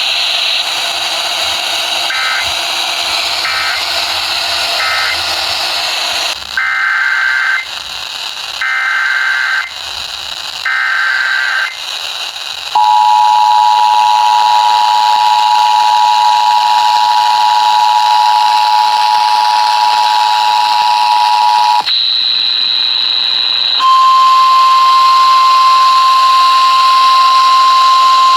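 Emergency Alert System tones over radio hiss. Three short buzzy data bursts end the previous alert, then three longer data-burst headers open the next. The steady two-tone EAS attention signal follows for about nine seconds, and after a short gap a steady single-tone weather radio warning alarm begins.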